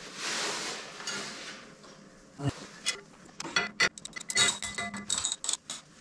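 Hand tools clinking and clicking against the steel pinch bolts of a Harley-Davidson Tri Glide's front fork as the bolts are worked: a soft rustle at first, then a quick, irregular run of sharp metallic clicks through the second half.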